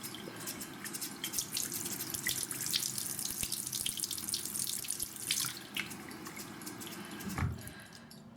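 Water running from a tap into a sink, splashing steadily, then shut off about eight seconds in.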